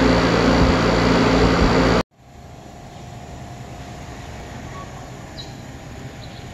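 Carrier reefer container refrigeration unit running close by: a loud steady whir with a low hum. About two seconds in the sound cuts off abruptly to a much quieter steady hum with a faint high steady tone.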